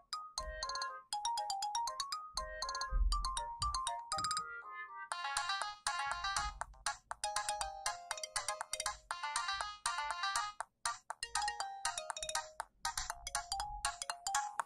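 Siemens CF62 mobile phone playing polyphonic ringtone melodies, several notes at once over a low beat. One tune stops about a third of the way in, and a different, busier melody starts straight after.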